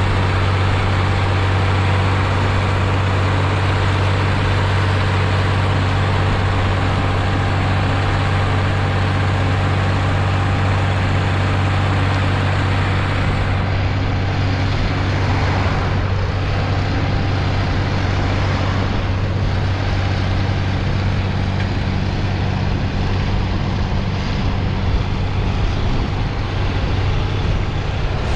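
Ursus 1201 tractor's six-cylinder diesel engine running steadily at an even speed, with a strong low hum.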